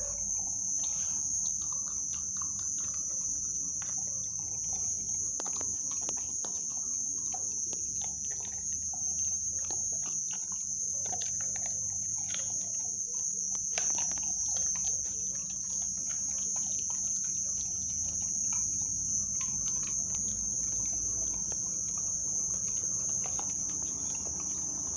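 Crickets trilling steadily as one continuous high chirring. Over it come scattered short clicks and smacks from a pitbull puppy chewing and licking its raw food close to the microphone.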